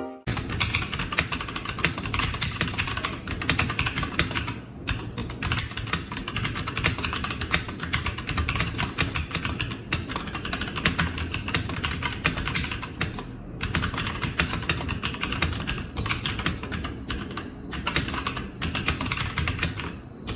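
Fast continuous typing on a DareU EK87 mechanical keyboard with red switches, a dense run of key clicks with a few brief pauses.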